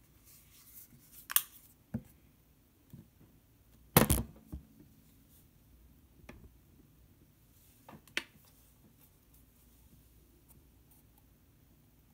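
Scattered clicks and knocks from painting supplies being handled, about half a dozen over the first eight seconds. The loudest is a knock about four seconds in.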